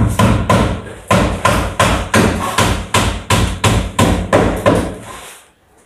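Hammering: rapid, evenly spaced blows, about four a second, that stop about five seconds in.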